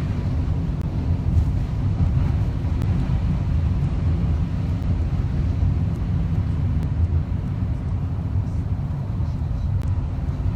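Car driving on a rain-soaked road, heard from inside the cabin: a steady low rumble of engine and tyres with a few faint ticks.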